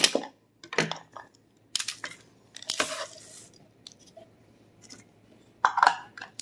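A few short rustles and knocks as chopped toasted pecans are tipped out of a small plastic manual chopper onto parchment paper and the chopper jar is handled again. The loudest clatter comes near the end.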